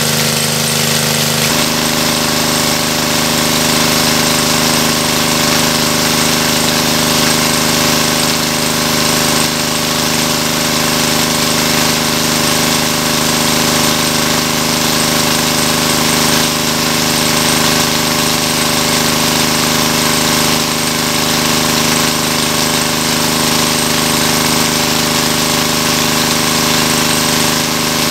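Small engine-driven water pump running steadily at a constant speed, pumping water out of a pond, with its discharge jet gushing out of the outlet hose.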